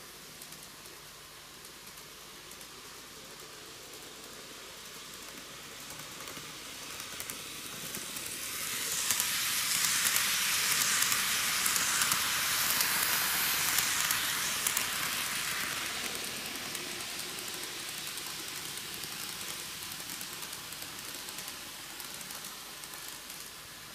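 Microace N gauge model of the Meitetsu KiHa 8000 series railcar set running on TOMIX superelevated track. The high-pitched running noise of its motor and wheels swells as the train comes close, is loudest for several seconds around the middle as it passes, then fades as it runs away.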